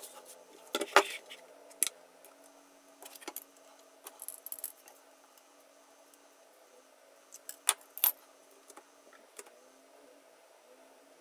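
Scattered light clicks and metallic taps of small hard objects being handled, with the sharpest pair of knocks near eight seconds in, over a faint steady hum.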